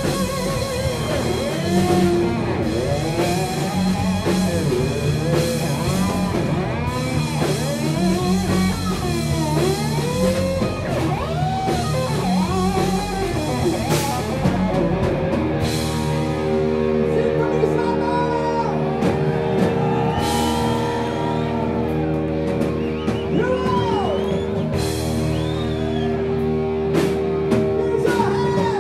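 Live rock band: distorted electric guitar over drums and bass, the lead guitar playing lines of bent, gliding notes; about halfway through it settles into long held notes.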